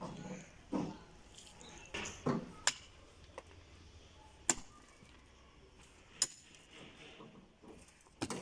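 Pickaxes striking stony earth while digging a pit: about seven blows at irregular intervals over several seconds, some sharp clinks of steel on stone, others duller thuds into soil.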